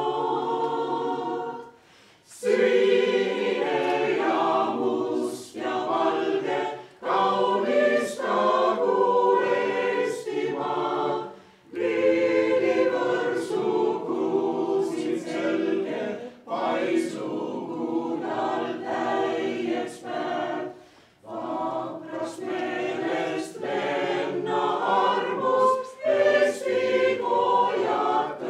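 Mixed choir of men and women singing in Estonian, in sustained phrases with brief breath pauses every few seconds.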